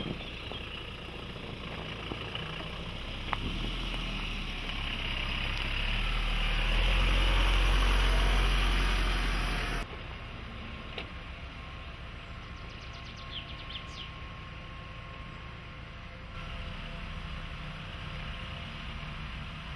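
Toyota Hilux's 2.4-litre four-cylinder diesel running at low speed as the pickup crawls over off-road terrain. The rumble grows louder over several seconds, then drops off abruptly about ten seconds in to a quieter, steady running sound.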